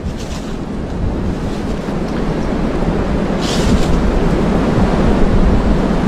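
Wind buffeting the camera microphone: a steady, loud rushing with a deep low rumble, growing slightly louder.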